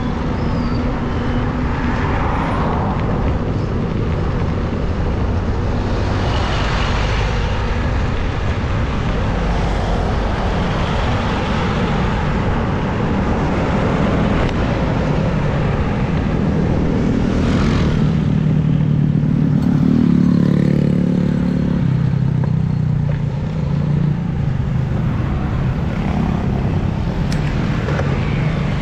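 Road traffic passing close by: cars and motorcycles going by one after another over a steady low rumble from riding. An engine's hum swells and fades about two-thirds of the way through.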